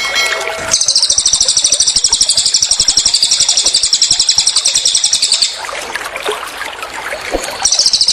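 Small songbird's rapid, high-pitched trill: a burst of many quick notes held for almost five seconds, starting about a second in, with another burst starting near the end. This rapid-fire burst is the 'tembakan' delivery prized in songbird training. A steady trickling of water runs underneath.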